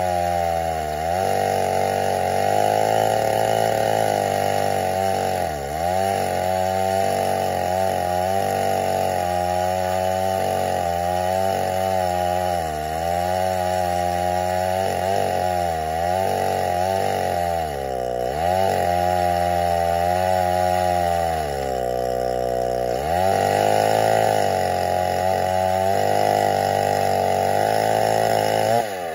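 Chainsaw mounted in an Alaskan mill running at full throttle while ripping lengthwise through an oak stump. The engine note sags and recovers over and over as the bar loads up in the cut, and drops off suddenly near the end.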